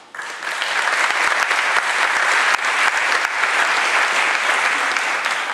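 Audience applauding, a dense clapping that starts suddenly and dies away near the end.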